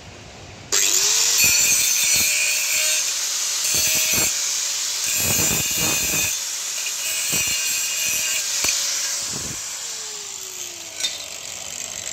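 Electric angle grinder with a sanding disc switched on about a second in, spinning up and then running steadily while it sands a bent steel bracket, the rasp of the disc rising and falling as it touches the metal. Near the end it is switched off and its pitch falls as it winds down. This is the sanding of the bracket to bare metal before it is spray-painted against rust.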